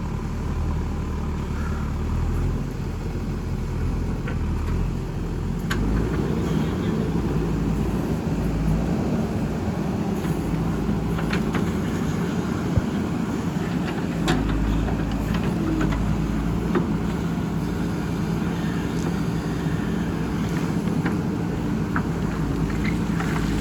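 JCB backhoe loader's diesel engine running steadily under working load, growing louder about six seconds in, with a few short sharp knocks.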